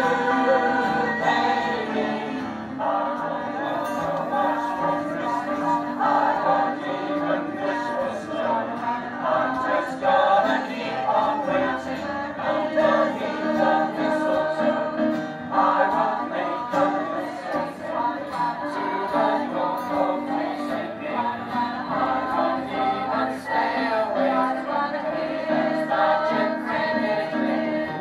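Community choir of men's and women's voices singing a Christmas song together, in sustained phrases with short breaks between them.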